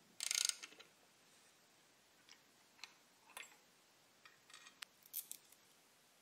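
Small metal clicks and light clatter of a hex driver, tool collar and milling tools being handled. A short burst of rapid clicking comes near the start as the driver with its 0.3 Nm torque adapter turns a grub screw, followed by scattered single clicks and another cluster of clicks about five seconds in.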